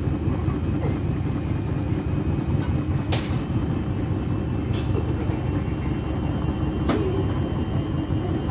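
Beko front-loading washing machine washing a heavy load of jackets and a blanket: a steady low rumble of the turning drum and sloshing suds, with a few sharp knocks as the tumbling load strikes the drum, the loudest about three seconds in.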